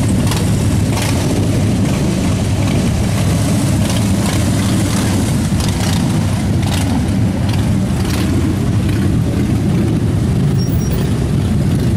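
Many motorcycle engines idling and running together as a large mixed group of bikes rolls at walking pace, a steady dense rumble. Brief sharper sounds come through now and then.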